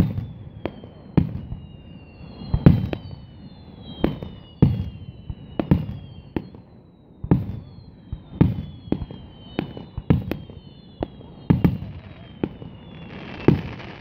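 Aerial fireworks shells bursting in a steady series of booms, a dozen or more, often under a second apart. Between them several high whistles slide down in pitch.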